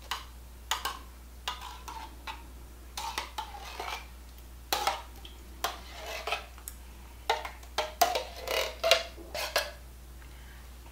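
A spoon clinking and scraping against a metal can of cherry pie filling as the filling is tipped and scooped out into a glass baking dish: a string of irregular sharp clicks and knocks, busiest in the second half.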